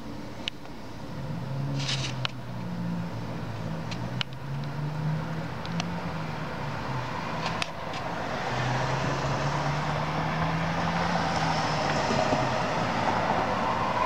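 Low, droning horn-like tones from an unseen source, each held for several seconds and stepping between a few pitches, over urban background noise. From about halfway on, the noise of passing traffic swells, and a few sharp clicks come through.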